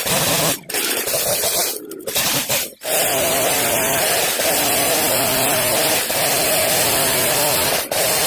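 Gas chainsaw running at high revs, cutting up tree branches into firewood lengths. The sound breaks off briefly three times in the first three seconds, then runs steadily.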